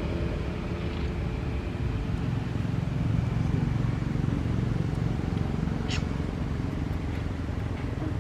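Steady low engine rumble, with a brief sharp click about six seconds in.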